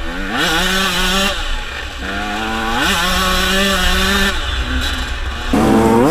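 Small two-stroke dirt bike engine running at high revs on a gravel trail. The pitch climbs sharply three times as the throttle is opened and holds steady between, over a low wind rumble on the on-bike microphone.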